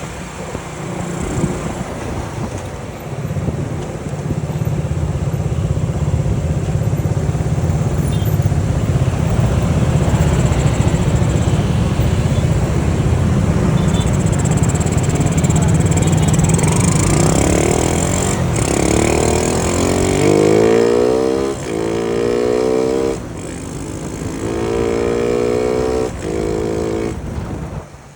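Honda C70 motorcycle's single-cylinder four-stroke engine running on the road. In the last third it accelerates several times, each time rising in pitch and then breaking off briefly, as if shifting up through the gears.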